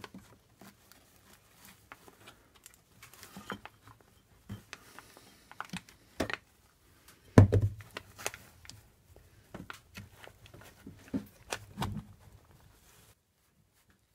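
A glued wooden chair leg being pushed and knocked into its mortise in the wooden seat frame: scattered knocks, clicks and handling noises, the loudest a dull thump about seven and a half seconds in, then quiet near the end.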